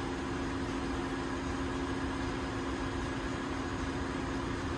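Steady drone of a ship's engine-room machinery, an even hum with two steady low tones over a broad rushing noise.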